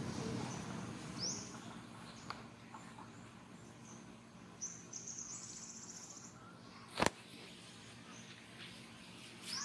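Outdoor ambience with scattered high bird chirps, among them a quick rising chirp about a second in and a high trill lasting about two seconds midway, over a steady low hum. One sharp click sounds about seven seconds in.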